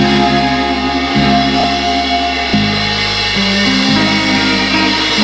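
Live jazz band with guitar, bass, drums and saxophone playing, the bass moving through long low notes that change about once a second.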